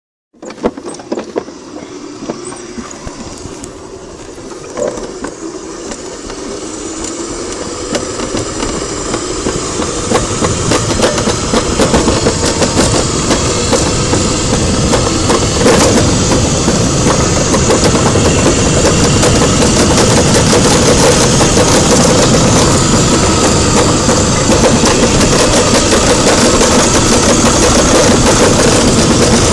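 Summer bobsled running down a stainless-steel trough track, a steady rattling rush that grows louder over the first fifteen seconds or so as it gathers speed, then holds. A few knocks sound in the first seconds.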